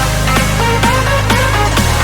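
Background music: electronic dance track with a steady beat, pitch-sweeping synth notes and a sustained bass.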